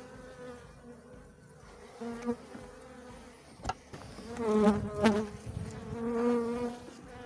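Honeybees buzzing around an open hive, with single bees flying close by so that the steady buzz swells louder several times, most strongly a little past the middle. One sharp knock about 3.7 s in.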